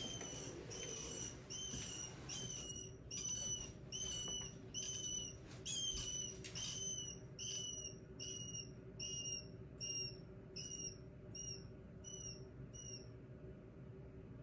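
Rat pup squeaking in distress as a ball python constricts it: a thin, high squeak about every half second, growing fainter and stopping near the end.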